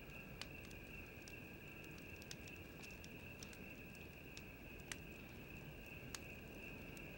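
Faint steady insect chirring, like a cricket chorus, with a few scattered sharp clicks.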